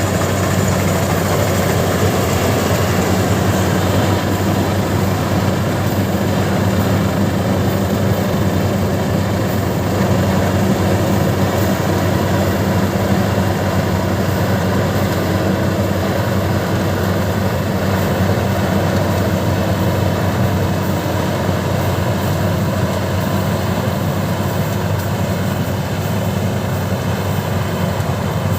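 Combine harvester engine running steadily at a constant speed, with a low, even hum and no change in pitch.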